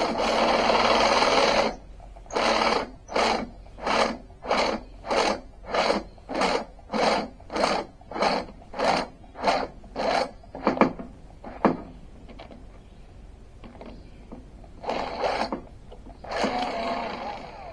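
Cordless drill drilling: a run of about two seconds, then a long series of short trigger pulses, about one and a half a second, which die out about eleven seconds in. Two more short runs come near the end. The drill's battery is going dead.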